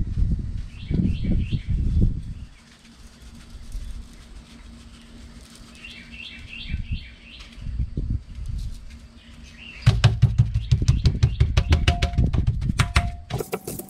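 Coarse ground black pepper shaken from a plastic shaker over a wild hog backstrap, with small birds chirping in the background twice. About ten seconds in comes a quick run of sharp slaps as a hand pats and rubs the seasoning into the meat on a plastic cutting board; this is the loudest part.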